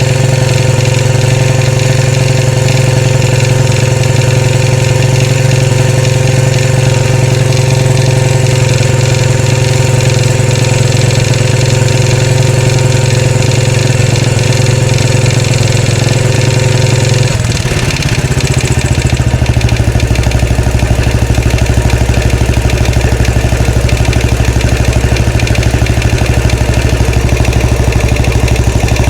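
Royal Enfield Classic 500's air-cooled single-cylinder engine idling steadily. About 17 seconds in the idle drops to a slower, lower beat and settles there.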